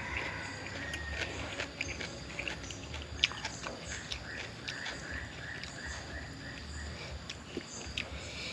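Close-up eating sounds: chewing and mouth smacks, with scattered sharp clicks as food is torn and handled by hand. In the middle, a run of about ten short rising-and-falling whistled notes at about four a second.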